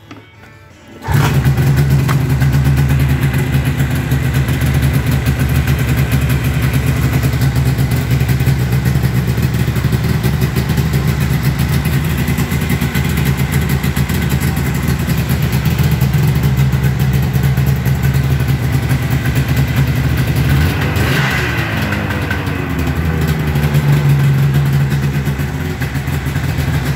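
Yamaha VMax 600 twin snowmobile's two-stroke engine catching about a second in and then idling steadily, on its first start-up with its carburettors freshly gone through. About three-quarters of the way through, the engine speed wavers briefly, dipping and then rising.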